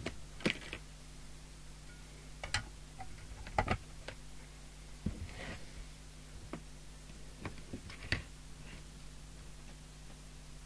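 Scattered light clicks and knocks as the Thunderpole T2000 CB radio's case is handled and put back together, about a dozen at irregular intervals, over a faint steady low hum.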